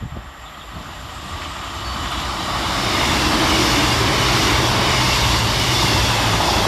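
CrossCountry Class 221 Super Voyager diesel-electric multiple unit passing through the station, its noise building over the first few seconds and then holding loud and steady, with a low engine hum under the rush of wheels and air.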